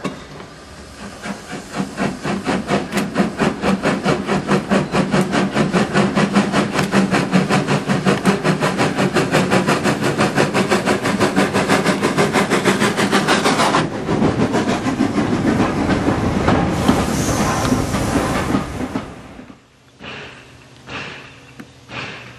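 Gresley V2 three-cylinder steam locomotive working hard, its exhaust beating sharply at about four to five beats a second as it comes close. The beats stop suddenly partway through, giving way to a few seconds of steam hiss and the rumble of the train rolling past. Near the end the sound drops to a much quieter scene with a few faint, spaced pulses.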